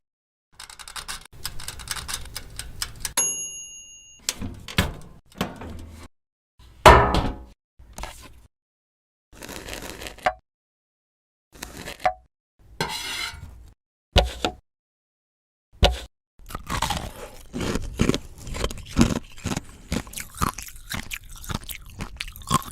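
A string of short, separate sound effects with dead silence between them: clatters, crunches and knocks, and a single electronic beep lasting about a second near the start.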